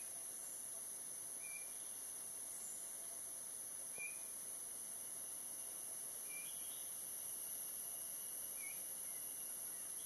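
Rainforest insects droning steadily at a high pitch, with a few short, faint bird chirps scattered through it and one light click about four seconds in.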